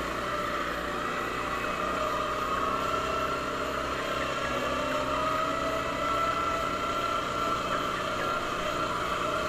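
ATV engine and drivetrain running steadily while riding along at an even pace, a steady whine over the engine noise.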